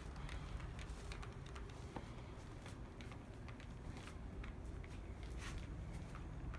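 Brass HO-scale model train running on sectional track: a faint low rumble with scattered light clicks of wheels over the rails and joints.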